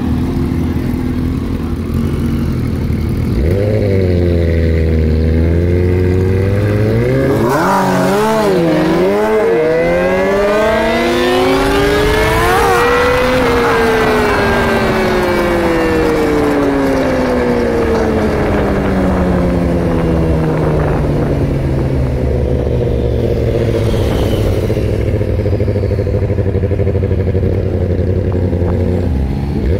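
Sport bike engine pulling away hard: low running at first, then the revs rise in short climbs with drops between them through several gears, and one long pull peaks about halfway through. The pitch then falls slowly and steadily as the bike rolls off and slows, with wind rush at speed.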